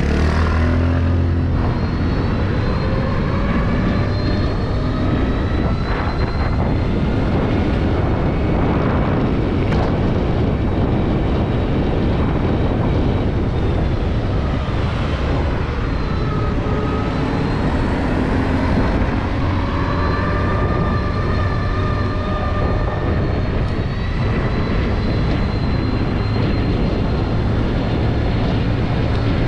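Riding an electric scooter (Suzuki e-Let's): a steady rush of wind and road noise, with a thin whine that slowly rises and falls in pitch as the speed changes.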